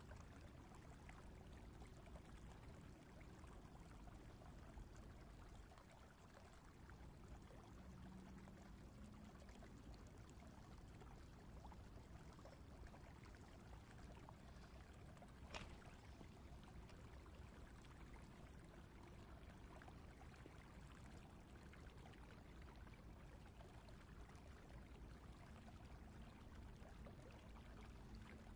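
Faint, steady rush of flowing stream water, with a single sharp click about halfway through.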